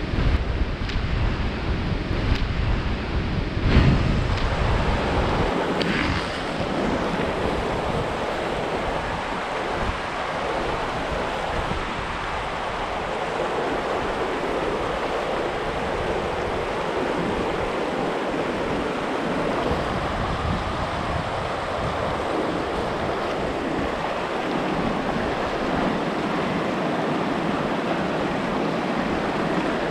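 A fast, rocky mountain river rushing over rocks and rapids: a steady, even rush of water. For the first five seconds or so, wind on the microphone adds a low rumble and a few clicks.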